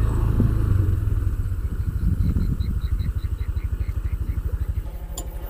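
Motorcycle engine running at low speed, its beat slowing and getting quieter as it eases off toward idle. A string of about a dozen short high chirps sounds over it in the middle.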